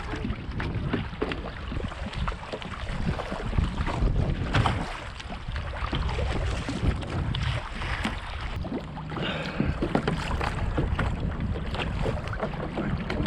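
Kayak being paddled on choppy water: irregular paddle splashes and water slapping, over a steady low rumble of wind buffeting the microphone.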